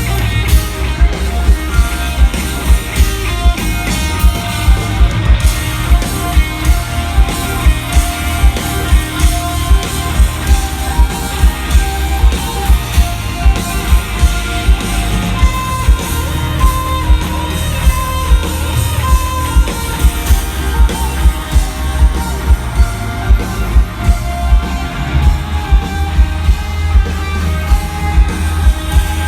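Grunge rock band playing live through a stadium PA: electric guitars over bass and drums, with a steady heavy drum beat at about two beats a second.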